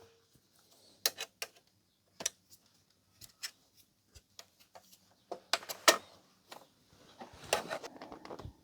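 Scattered clicks and knocks of plastic parts as the front cover of a Blu-ray player is worked loose from its snap clips. A louder pair of clacks comes a bit past halfway, and a scraping rustle comes near the end.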